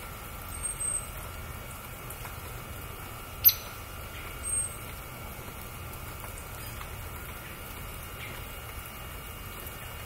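Small songbirds giving brief, very high-pitched call notes: a pair of thin notes about half a second in, one sharp, louder chip sweeping downward at about three and a half seconds, and another thin note a second later. Under them runs a low, steady background rumble.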